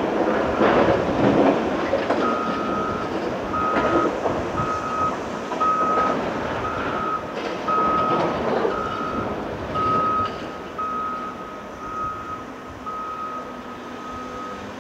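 A heavy machine's back-up alarm beeping steadily, a single tone repeating roughly every 0.7 seconds, from about two seconds in until near the end. Under it the diesel of a large hydraulic excavator runs and blasted rock clatters in its bucket, loudest in the first two seconds.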